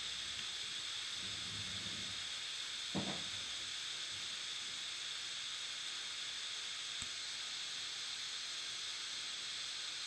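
Steady hiss of background noise, with a soft knock about three seconds in and a faint click near seven seconds.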